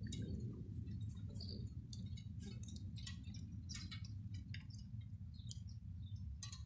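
Wind rumbling on the microphone under a stormy sky, with short, sharp high-pitched clicks and chirps scattered throughout, several a second at times.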